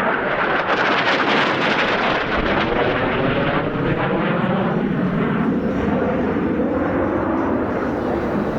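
AV-8B Harrier's Rolls-Royce Pegasus turbofan passing overhead, a loud jet noise at its brightest about a second in, then sinking in pitch to a lower rumble as the jet moves away.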